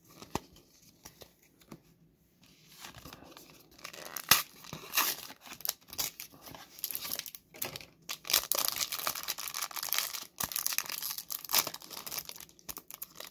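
Foil Pokémon booster pack wrapper being torn open and crinkled by hand. It is quiet at first with a few small clicks, then comes a sharp snap about four seconds in, and dense crinkling and tearing fill the second half.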